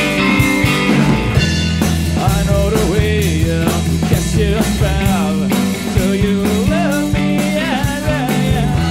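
Rock music with a steady drum beat; a wavering lead melody comes in about two seconds in.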